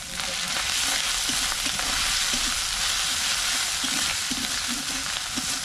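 Food sizzling steadily in hot oil in a black wok (kadai), stirred with a metal spatula that scrapes around the pan.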